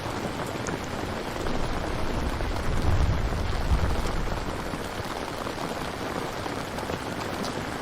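Steady rain ambience, an even hiss of falling rain. A low rumble swells and fades about three seconds in.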